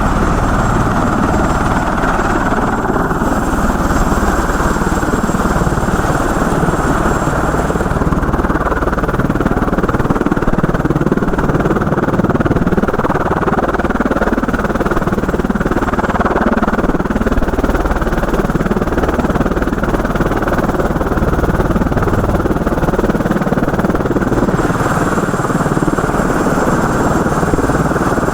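Helicopter engine and rotor noise heard from inside the cabin, a loud, steady drone.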